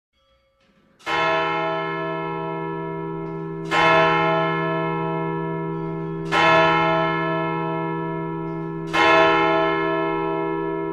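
A deep, church-like bell in the medley's recorded music, struck four times about two and a half seconds apart, each strike ringing on and slowly fading.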